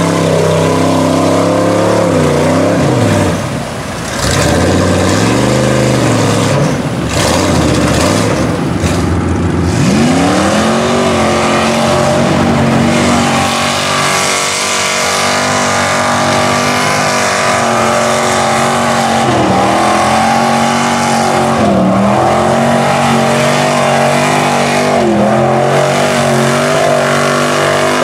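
Lifted mud bog trucks' engines running at high revs as they drive through a deep mud pit. The first truck's revs rise and fall. About 10 seconds in, a second truck's engine climbs and holds high revs, dropping briefly a few times.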